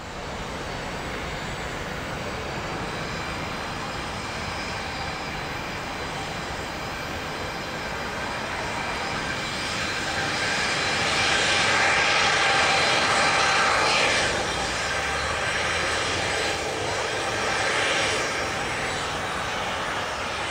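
Boeing 737-700 BBJ's CFM56-7 turbofan engines running at taxi power, a steady jet rush with a high whine. It grows louder about halfway through and swells again near the end.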